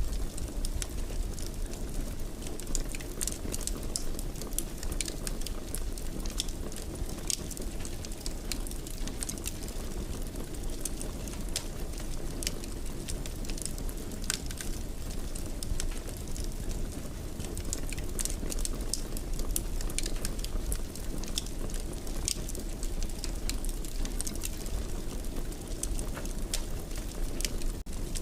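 Fire burning in a fireplace: a steady low rumble of flames with frequent small, irregular crackles and pops.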